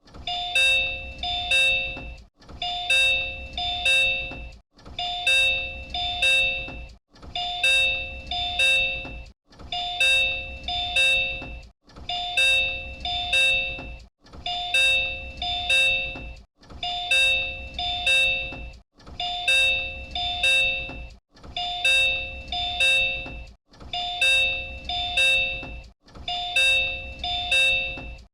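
Door chime of a Disney Resort Line Type 10 monorail car, the same chime JR Central trains use, looped without pause. Two alternating chime notes sound in rounds of about two and a half seconds, with a brief gap between each round.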